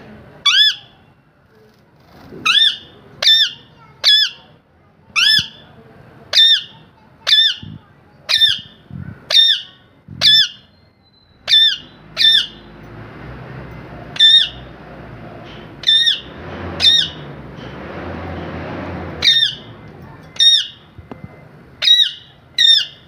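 A parrot giving short, sharp squawks over and over, about one a second and sometimes in quick pairs, each call the same rise-and-fall shape. A broad background rush swells under the calls for several seconds in the middle.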